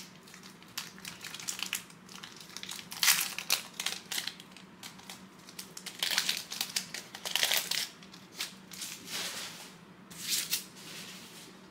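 Crinkling and rustling of a foil trading-card pack wrapper and cards being handled, in irregular bursts with louder spells about three seconds in, from about six to seven and a half seconds, and near ten seconds.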